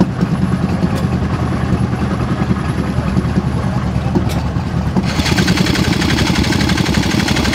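Small air-cooled engine running at a rapid, even beat; about five seconds in the sound turns harsher and brighter.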